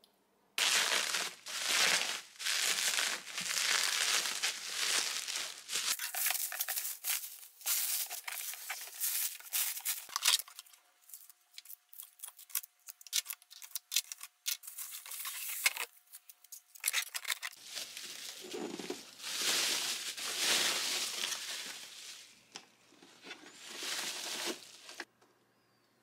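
Packaging being opened by hand: a cardboard box handled and bubble wrap crinkled and pulled away, in irregular bursts of rustling with many sharp clicks and crackles.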